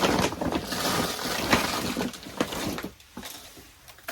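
Dry wood chips and shavings being handled, a run of crackling, rustling clicks that dies down about three seconds in.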